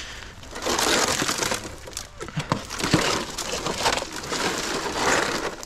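Sheets of rusty corrugated roofing tin being lifted, pried and flipped with a snake hook, scraping and clattering against each other in a pile. There are several loud scraping surges, with sharp metallic clanks among them.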